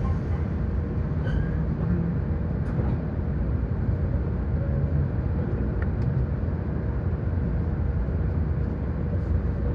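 Steady low hum inside a standing E7 series Shinkansen carriage, with a faint steady tone above it and a few faint clicks.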